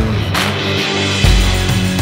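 Background rock music with sustained chords and a drum hit about a third of a second in.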